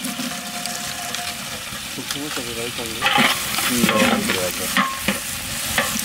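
Sliced onions and green chillies frying in hot oil in a large metal pot over a wood fire, sizzling steadily, while a long spatula stirs and scrapes through them; the stirring grows louder about three seconds in.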